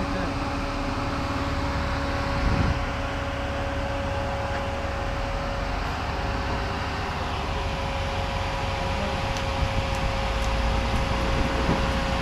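Off-road vehicle engine running at low speed while crawling rock ledges: a steady hum with a low rumble. A brief low thump comes about two and a half seconds in, and the rumble grows a little louder near the end, with a few small knocks.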